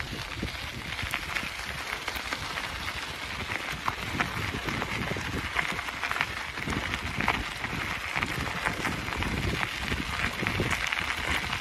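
Wind buffeting the microphone of a phone mounted on a moving bicycle, a gusting low rumble, with steady crackling and scattered ticks from the ride over the road.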